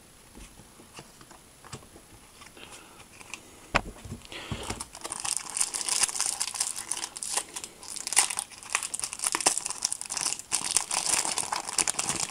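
Foil wrapper of a Panini Adrenalyn XL trading-card booster pack crinkling as it is torn open by hand. A few light clicks come first, then from about four seconds in a loud, continuous crinkling runs to the end.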